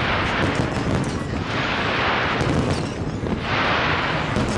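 Aerial fireworks bursting in quick succession: many sharp cracks and bangs over a continuous low rumble, with three swells of hissing crackle, each about a second long.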